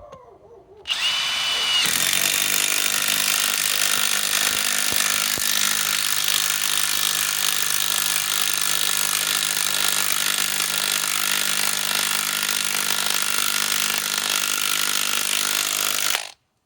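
Cordless mid-torque impact wrench (Bosch GDS18V-330C) hammering steadily as it drives a long lag screw into undrilled wood. It runs unbroken for about fifteen seconds and stops abruptly near the end.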